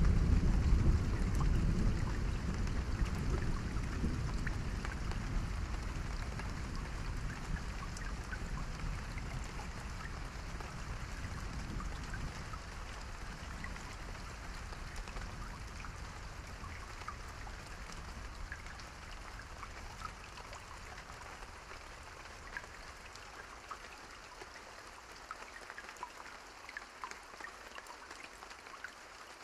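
Steady rain with scattered drops pattering, under a low thunder rumble that is loudest at the start and dies away slowly over the first twenty seconds or so, leaving the rain alone.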